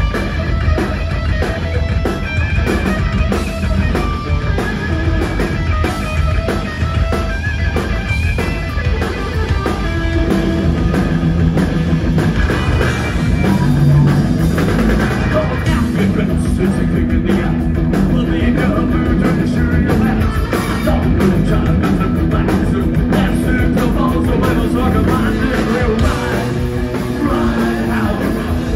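Punk rock band playing live: electric guitar through Marshall amps, bass and a drum kit at a fast steady beat, with a singer's vocals at times.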